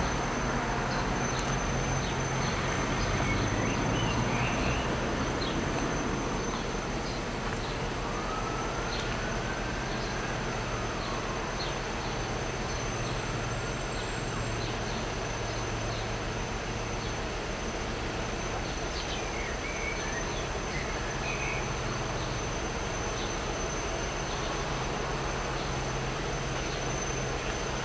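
Steady low engine rumble of traffic waiting at a level crossing, under a constant high-pitched whine, with faint scattered ticks and a few soft rising-and-falling tones near the middle.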